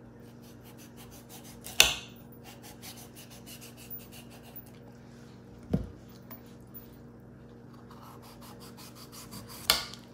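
A kitchen knife peeling the rind off a raw pumpkin wedge in many short, faint scraping strokes. Three sharp knocks, about four seconds apart, stand out as the loudest sounds.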